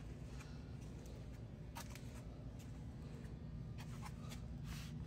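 Quiet indoor room tone: a steady low hum, with a few faint clicks and rustles of handling.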